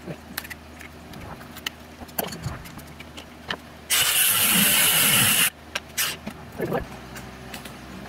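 Cordless angle grinder grinding steel in one short burst of about a second and a half, about four seconds in, amid light clinks and knocks of tools and metal pieces being handled.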